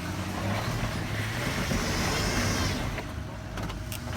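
Jeep Grand Cherokee engine revving under heavy throttle on an off-road climb, getting louder for about two seconds in the middle with a high hissing whine over the engine drone.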